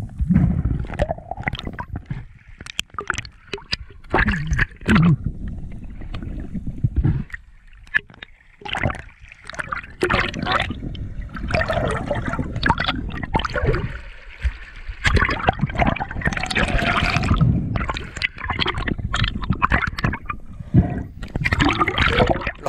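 Water gurgling and sloshing around a camera held just under the sea surface, in uneven surges with scattered clicks and knocks.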